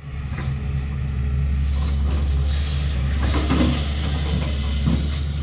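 Sany excavator's diesel engine running steadily, with a few scrapes and knocks about three seconds in and again near the end.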